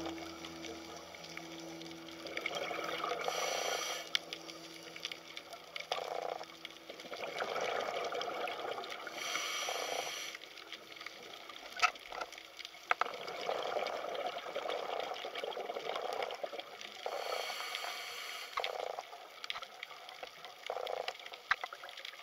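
Scuba diver breathing, heard underwater through a regulator: a hissing inhalation every several seconds, each followed by bubbling, gurgling exhalation.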